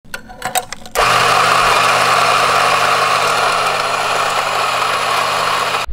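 Electric espresso grinder starting about a second in after a few light clicks, running steadily as it grinds coffee beans, then cutting off suddenly near the end.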